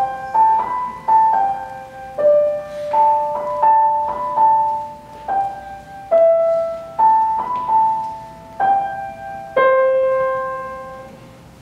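Grand piano played solo: a slow, simple melody of single notes, ending on a held note that fades away over the last couple of seconds.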